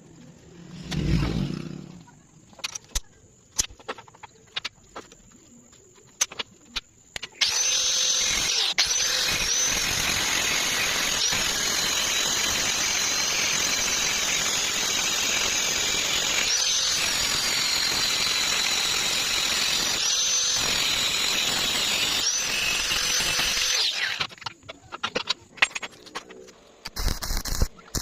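A power tool runs steadily for about sixteen seconds, with a high whine that dips and recovers several times as it works. Before it come scattered light clicks and taps, and after it more taps.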